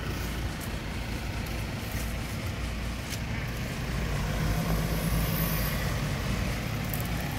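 SUV driving over a rough unpaved road: the engine runs steadily under a low rumble of tyre and road noise, with a few short knocks, and the engine note rises a little about four seconds in.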